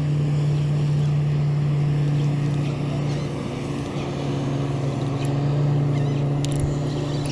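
An engine running steadily, a constant low hum with no change in speed.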